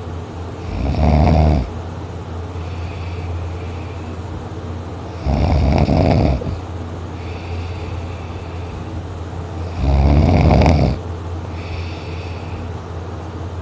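Heavy snoring from a sleeper: three loud snores about four and a half seconds apart, with softer, noisy breaths between them.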